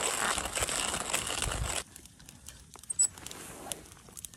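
Coffee packet crinkling and tearing as gloved hands work it open; the crinkling cuts off sharply a little under two seconds in. After that it is much quieter, with a few light ticks and one sharp click about three seconds in.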